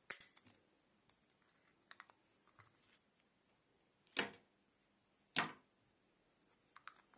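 Quiet hand-work sounds: a sharp snip of diagonal cutters through thin wire at the start, a few small clicks, then two louder short knocks about a second apart as the plastic lamp holder is handled on a cloth.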